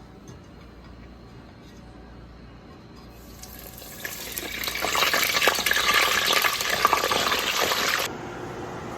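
Catfish nuggets going into a deep fryer: the hot oil sizzles and crackles. It starts about three seconds in, grows louder, and cuts off suddenly near the end.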